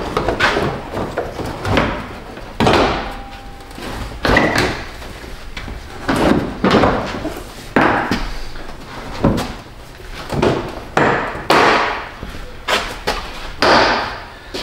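Hard plastic front-end trim and clips on a car being handled and pushed into place: a long, irregular run of knocks, clacks and short scraping rustles, roughly one every half second to second.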